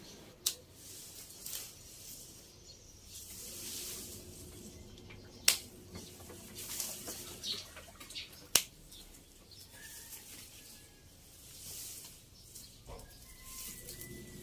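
Leaves and branches rustling as leafy plants are pulled and handled. Three sharp clicks, the loudest sounds, come about half a second, five and a half and eight and a half seconds in.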